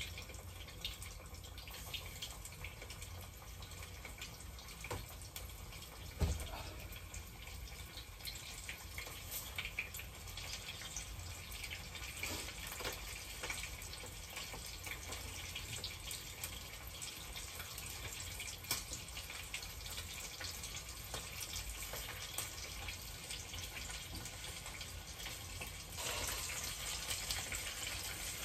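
Chicken pieces deep-frying in a small pot of oil: a steady sizzle with small crackles that grows louder about two seconds before the end. A single knock about six seconds in.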